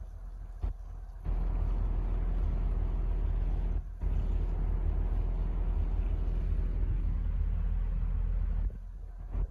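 Wind buffeting the microphone: a loud low rumble that sets in suddenly about a second in, drops out for a moment near the middle and cuts off near the end.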